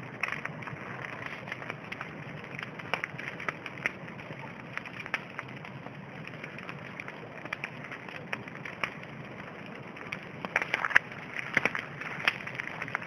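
Wood bonfire burning: a steady hiss with irregular sharp crackles and pops from the burning firewood, the pops coming thicker near the end.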